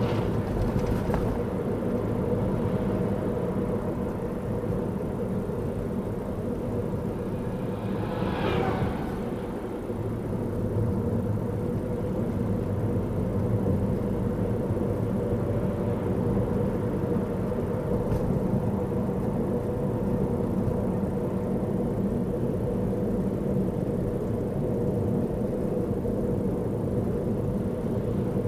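Car driving along a paved road, heard from the driver's seat: a steady drone of engine and tyre noise, with a brief higher-pitched sound about eight seconds in.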